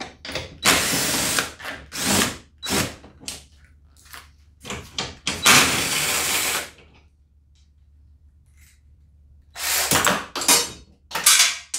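Cordless drill with a socket spinning out 10 mm bolts in short bursts, with one longer run about five and a half seconds in, a pause, then three quick bursts near the end.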